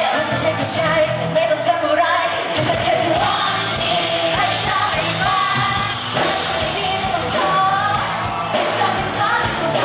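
Live pop music: a woman's voice singing into a microphone over the band, loud and continuous.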